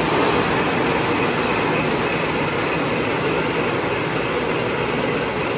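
Tea-processing machinery running with a loud, steady mechanical whir and rattle, holding an even level throughout.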